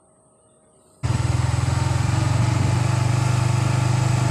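Small motorcycle engine idling, coming in abruptly about a second in after near silence, with a steady fast pulsing beat.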